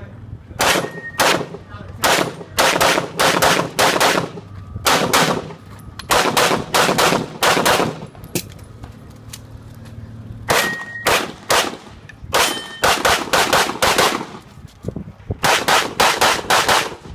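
Handgun fired rapidly in quick pairs and short strings during a practical-shooting stage run. The strings are separated by pauses of a second or more while the shooter moves or reloads.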